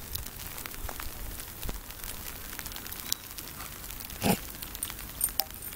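Soft, continuous crackling and ticking of sleet and icy snow, with one louder dull thump about four seconds in.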